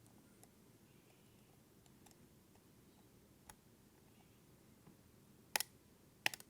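Lock pick working the wafers of an Illinois Duo wafer cam lock under tension: faint scattered ticks, with a sharper click about three and a half seconds in and two louder clicks near the end.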